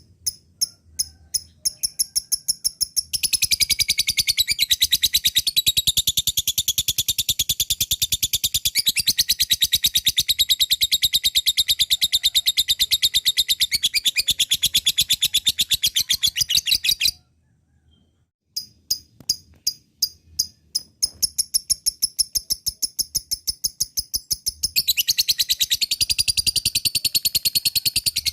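Lovebird ngekek: a long, high-pitched, very fast chattering call. It starts as separate chirps that speed up into an unbroken chatter about three seconds in. It breaks off for about a second and a half past the middle, then starts again as separate chirps that run into the fast chatter near the end.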